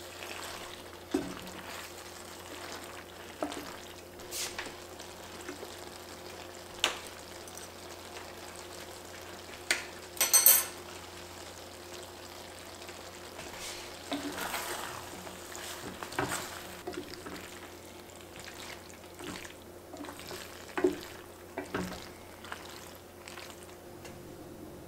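Wooden spoon stirring saucy pasta and ground pork in an enamelled braiser: wet, squelching scrapes and scattered soft knocks against the pan, with one louder clatter about ten seconds in. A low steady hum runs underneath.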